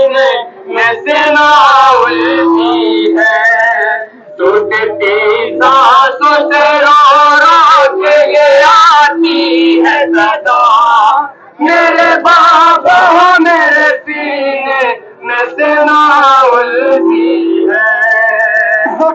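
Voices loudly singing a noha, a Shia Muharram lament, in a wavering melodic line broken by short pauses.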